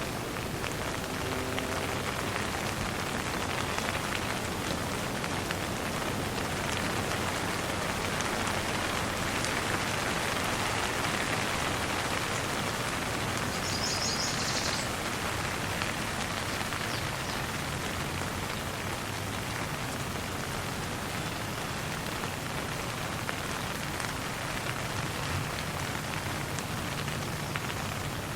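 Steady light rain falling and pattering, swelling slightly in the middle. There is a brief high chirp about halfway through.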